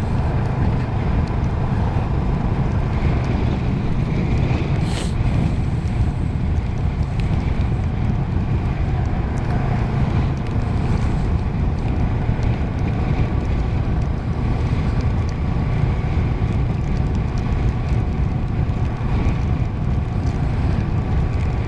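Steady wind rush buffeting the microphone while riding a motorcycle, with engine and road noise beneath it.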